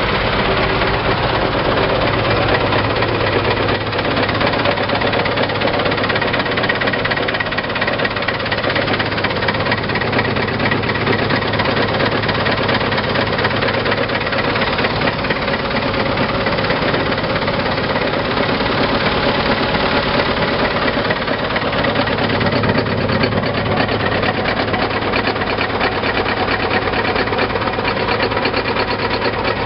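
Engine of a Rosco RA 200 asphalt repair machine running steadily at idle, with a fast, even pulse.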